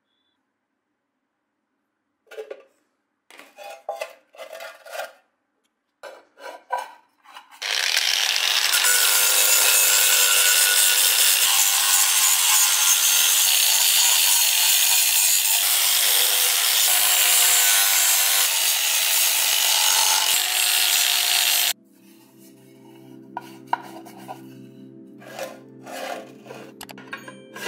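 A few short scraping strokes, then an angle grinder with a sanding disc running steadily against a metal mess-tin lid for about fourteen seconds, stripping it to bare metal, before cutting off suddenly. Soft background music with sustained low tones follows.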